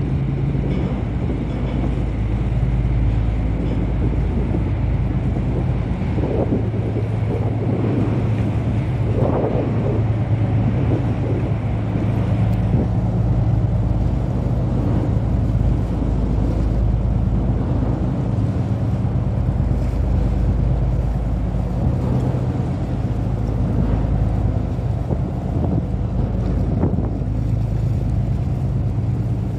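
Low, steady engine drone of ships passing in the strait, with wind rumbling on the microphone.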